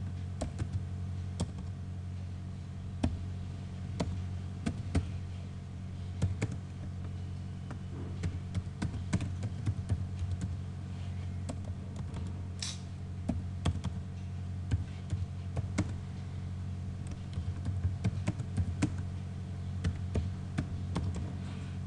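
Typing on a computer keyboard: irregular key clicks in short runs, over a steady low hum.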